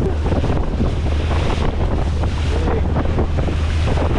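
Strong wind buffeting the microphone on a small fishing boat moving slowly through choppy water, with waves splashing against the hull over the steady low hum of its motor.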